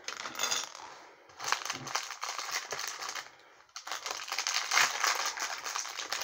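Plastic parts bags crinkling as they are handled and rummaged through, in spells with short lulls about a second in and again about three and a half seconds in.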